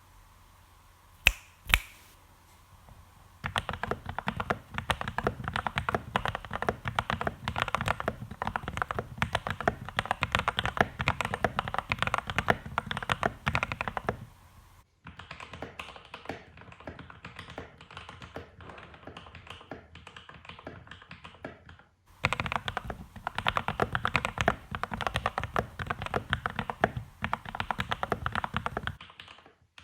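Fast continuous typing on a Keydous NJ80 mechanical keyboard with lubed Gateron Pro Milky Yellow linear switches, steel plate and foam mods, after two sharp clicks near the start. The typing turns lighter and quieter through the middle, then comes back dense and full before stopping near the end.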